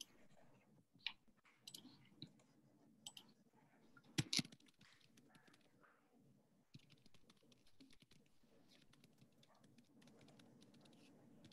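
Faint clicking and typing on a computer keyboard: a few scattered single clicks, a louder double click about four seconds in, then a run of quick light key taps from about seven seconds on.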